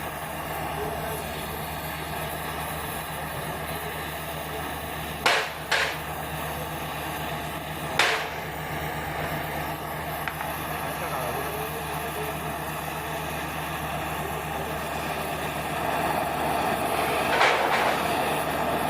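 A steady machine hum with a constant low tone and hiss. Three sharp metallic knocks come in the middle, and another comes near the end.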